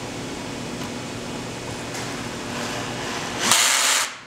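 Steady mechanical hum of workshop machinery. Near the end, a loud burst of hiss lasts about half a second and cuts off abruptly.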